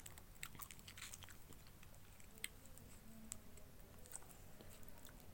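Faint chewing of a spoonful of instant cup noodles, with scattered soft mouth clicks.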